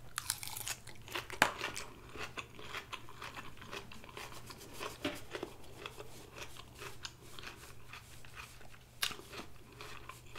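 Close-miked chewing of a mouthful of salad: crisp lettuce and croutons crunching in irregular bites, one louder crunch about a second and a half in.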